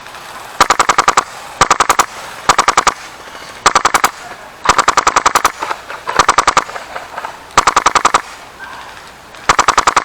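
HPA airsoft rifle, an LCT LCK-12 AK-12 run on a Polarstar F2 engine, firing about nine short full-auto bursts of rapid sharp cracks, with brief pauses between bursts.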